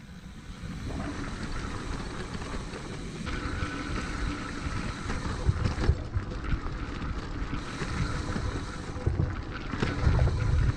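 Mountain bike riding fast down a dirt singletrack: knobby tyres rolling over dirt and dry leaves, with the bike rattling over bumps, and wind rumbling on the microphone. The knocks come thicker and louder near the end.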